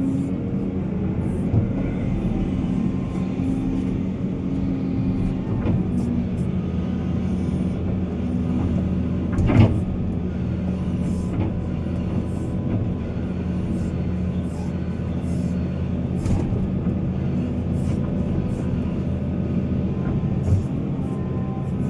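Heavy diesel machinery engine running steadily under load, with scattered knocks and one louder clank about ten seconds in.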